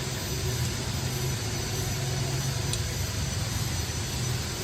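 Motors of a four-head automatic drilling machine running with a steady low hum over a continuous hiss.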